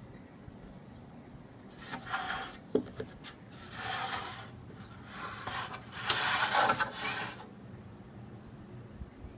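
Metal DVR case being turned and slid by hand on a wooden tabletop: three scraping rubs of about a second each, with a sharp knock between the first two.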